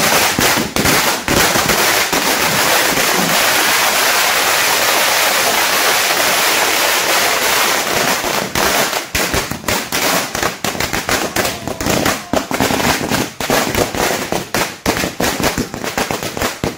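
A long string of firecrackers bursting on the road. For about the first half it is a dense, rapid crackle of bangs, which then thins to separate, scattered bangs toward the end.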